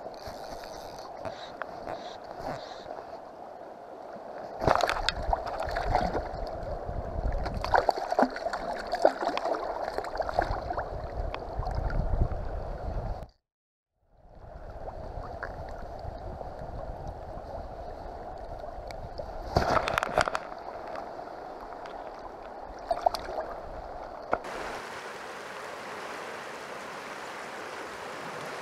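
River current rushing and gurgling around a wading angler, with splashes and handling noises as a small fish is brought in at the surface. The sound cuts out for an instant about halfway through, and near the end it changes to a smoother, steadier hiss of flowing water.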